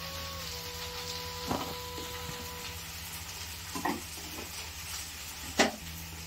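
Food sizzling as it fries in a black iron kadai over a wood fire, a steady hiss. A few sharp clinks of a spoon and containers cut through it, the loudest near the end.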